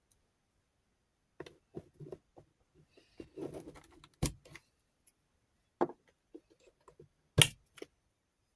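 Rotary-tool accessories and their case being handled: a run of irregular clicks and knocks with a short light rattle, and two sharp snaps, one a little past four seconds in and a louder one near the end.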